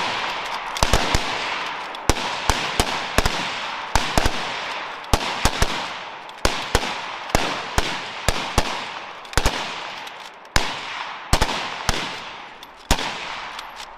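Several .303 British Lee Enfield bolt-action rifles in rapid fire, shots coming out of step and overlapping, each trailing off in an echo. The firing thins out to scattered single shots in the last few seconds.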